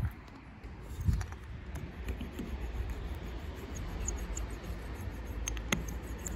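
Small handled roller rolled along bituminous flashing tape pressed onto an aluminium angle: soft rubbing and scratching, with a knock about a second in and a sharp click near the end, over a low rumble.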